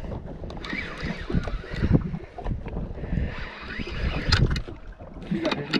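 Spinning reel being cranked to bring a hooked red grouper up to the boat, with wind rumbling on the microphone. A few sharp clicks come about four seconds in and again near the end.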